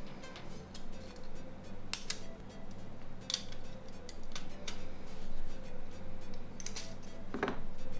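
Scattered sharp clicks and small clinks of tools and plastic parts as a Nokia 3220 mobile phone is taken apart, with a slightly heavier knock near the end. Soft background music plays underneath.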